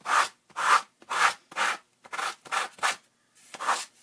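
Sanding block with 100-grit sandpaper scraping in short back-and-forth strokes along the edge of an old book's cover board, about two strokes a second, cleaning off the frayed edge.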